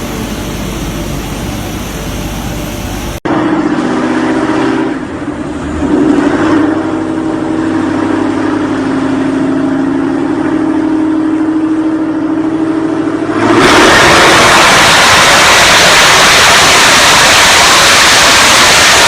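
Modified performance car engines revving, with hard cuts between clips: after about three seconds an engine is held at high revs, its pitch rising and then steadying for about ten seconds. Near the end it gives way to a loud, even rushing noise.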